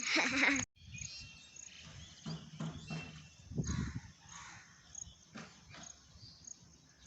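Insects chirping in short, evenly repeated high pulses, with low footstep thuds and faint rustling underneath. A loud rustle at the very start cuts off suddenly.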